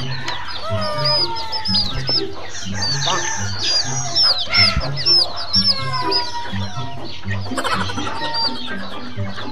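Young chickens peeping in many short, high chirps, with a few lower sliding calls among them, over background music with a low repeating note.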